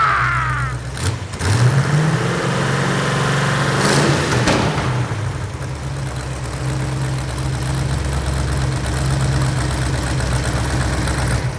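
Freshly rebuilt engine running with exhaust leaking at the headers, whose cheap stamped-steel header gaskets have stopped sealing. It revs up once about a second and a half in, settles to a steady idle, and cuts off suddenly near the end.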